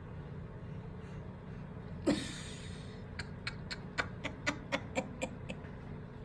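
A short cat meow falling in pitch about two seconds in, followed by a run of quick, light clicks, about four or five a second, over a steady low hum.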